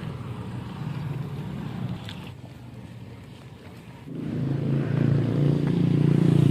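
A vehicle engine running steadily. It eases off in the middle, then grows louder and fuller from about four seconds in.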